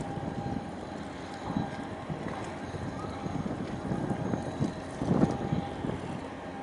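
Wind buffeting the microphone in irregular gusts over a steady low rumble, the strongest gust about five seconds in.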